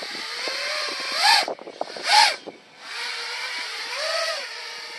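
FPV quadcopter's brushless motors whining in flight, the pitch rising and falling with the throttle: two sharp surges, one about a second in and one about two seconds in, a brief drop almost to nothing as the throttle is chopped, then a steadier whine that swells once more near the end.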